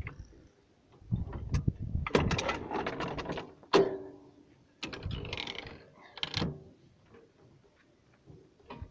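Metal parts of a 14.5 mm anti-aircraft heavy machine gun clicking, clanking and scraping as it is taken apart by hand, with a sharp clack near four seconds in. It goes mostly quiet for the last couple of seconds.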